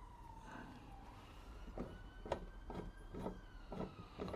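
Small Mamod toy steam-engine boiler ticking and crackling irregularly, several times a second, as the water in it comes to the boil. Under it runs a faint wailing tone that slowly falls, rises and falls again.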